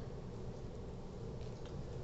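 Steady low background hum and hiss (room tone), with a couple of faint clicks about one and a half seconds in.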